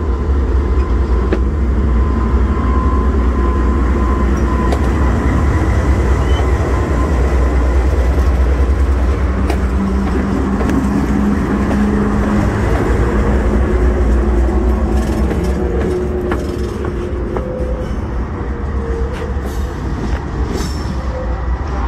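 Diesel locomotive engine rumbling heavily as the unit rolls slowly past at close range while backing down a yard track. It gets gradually quieter over the last few seconds as it moves away.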